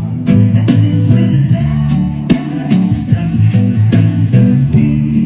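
Loud reggae-style music played over a big sound system, with a heavy, prominent bassline, a guitar and a steady drum beat.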